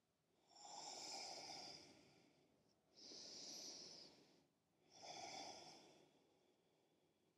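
A woman's soft, slow breathing: three faint breaths, each lasting about a second, with short pauses between them.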